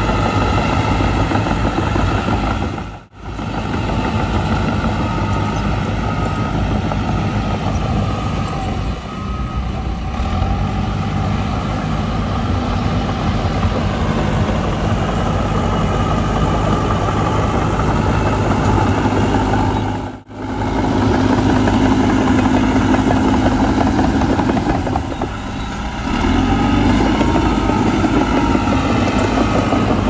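Crawler bulldozer diesel engine running steadily as it pushes soil, a continuous low engine hum. The sound cuts out briefly twice, about three seconds in and again about two-thirds of the way through.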